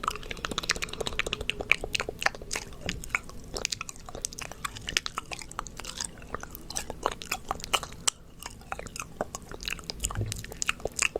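ASMR mouth sounds close to the microphone: a quick, irregular run of wet clicks and smacks.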